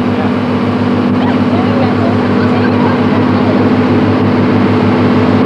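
Steady drone of a harbour boat's engine with a regular pulsing beat, over a wash of water and wind noise.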